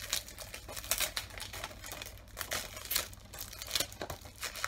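Plastic shrink wrap crinkling and crackling irregularly as it is peeled and torn off a 4K Blu-ray disc case by hand.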